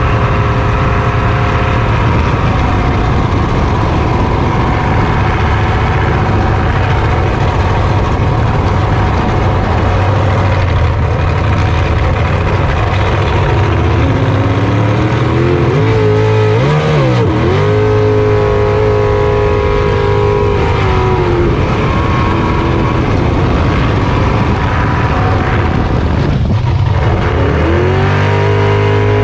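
Race jet boat's engine running hard at high revs over a rushing noise. The revs rise and waver through rough water around the middle, drop sharply near the end and climb back up.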